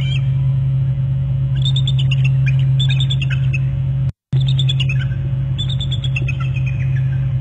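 Bald eagles calling: repeated runs of high, piping chitters that fall in pitch, over a steady low electrical hum. The sound cuts out briefly about four seconds in.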